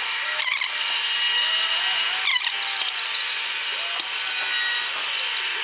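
Steady high-pitched machine whine over hiss, with short rasping scrapes about half a second in and again near two and a half seconds.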